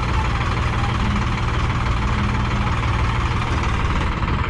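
Sonalika DI-745 III tractor's diesel engine running steadily at low speed.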